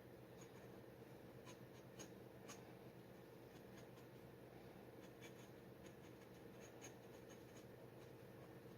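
Faint scratching of a steel G-nib dip pen drawing on paper, in short irregular strokes and ticks over a steady low hum.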